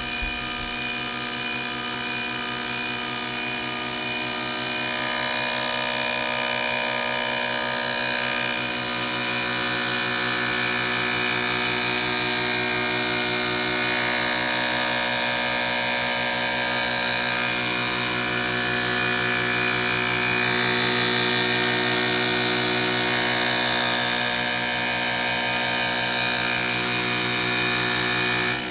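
Sherline CNC mill fly-cutting the face of an aluminum plate: a steady, high-pitched whine of several tones from the spindle and stepper motors, growing a little louder after the first few seconds.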